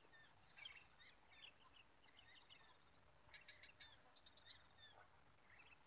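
Near silence with faint small-bird chirps scattered throughout, including a quick run of chirps a little past halfway, over a thin steady high whine.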